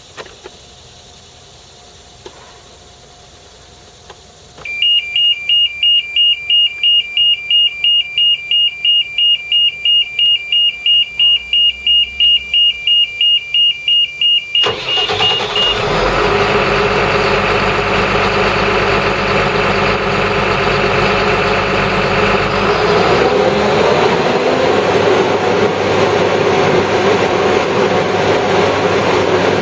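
Pre-start warning alarm beeping rapidly, about four beeps a second, for about ten seconds, then the McCloskey 621RE screener's engine starts and runs steadily, its pitch rising once about three quarters of the way through.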